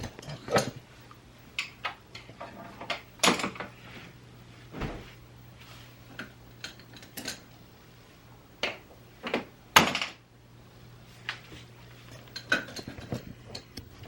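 Scattered clicks and knocks of makeup containers and compacts being handled and set down on a hard surface, a few louder clacks among them, over a faint steady low hum.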